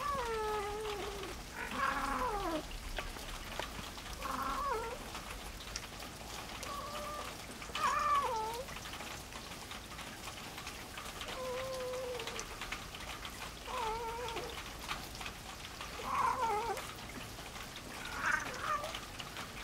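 Domestic cat meowing over and over: about nine drawn-out meows, each under a second, most of them falling or wavering in pitch, roughly every two seconds.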